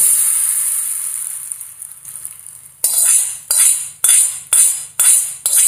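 Hot sesame oil with spluttered mustard seeds sizzling as it is poured onto brinjal thogaiyal, the hiss fading away over about two seconds. Then a spoon scrapes the small tempering pan six times, about two strokes a second, to get the last seeds out.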